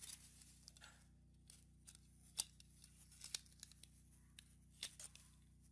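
Faint, scattered light clicks and taps of small plastic clock-movement parts being handled and set down on a wooden tabletop, with a faint steady hum beneath.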